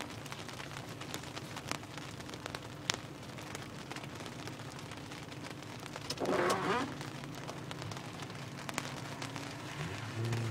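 Rain falling on a car's roof and windshield, heard from inside the cabin as a steady patter with many separate drops ticking, over a low steady hum. A brief voice breaks in about six seconds in.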